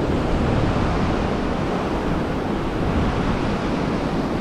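Sea surf washing and breaking steadily, with wind buffeting the microphone.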